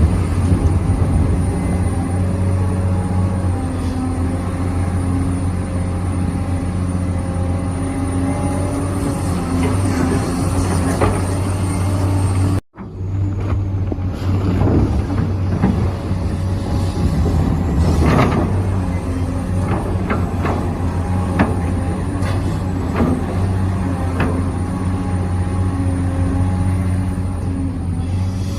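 Radio-controlled model excavator and truck running: a steady motor and gear hum with a thin high whine, and scattered knocks and scrapes as they work. The sound breaks off for an instant about a third of the way in.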